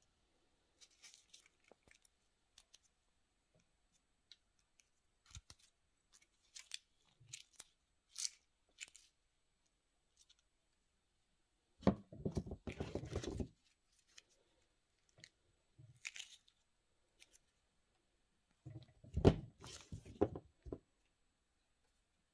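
Hands handling black PVC tape scrap and rolls of PVC tape: scattered soft rustles and clicks, with two louder bouts of plastic rubbing and rustling about twelve and nineteen seconds in.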